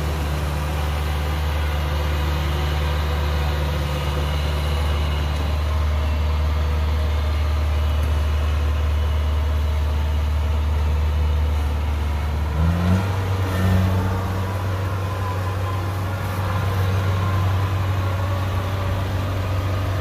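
Kubota DC-60 combine harvester's diesel engine running steadily while the crawler machine drives. About two-thirds of the way through, the engine pitch steps up and holds there.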